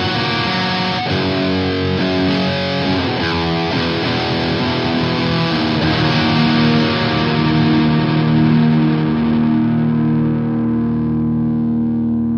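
Metal band recording with heavily distorted electric guitar: a quick run of changing notes, then long held notes ringing on while the treble fades out over the last few seconds.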